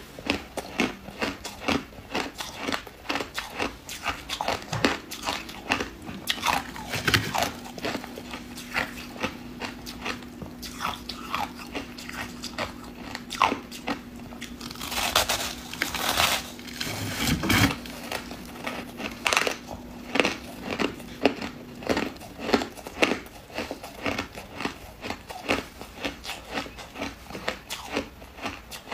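Ice being bitten and chewed close to the microphone: a rapid, irregular run of brittle crunches and cracks, with a longer, denser crunch around the middle.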